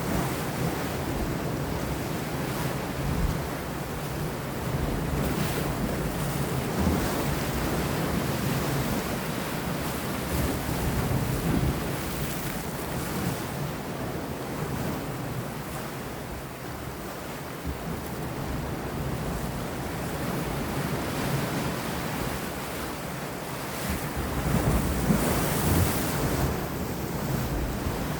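Sea waves washing and breaking against rocks, a continuous surf wash that swells and ebbs, with one stronger surge near the end. Wind blows over the microphone throughout.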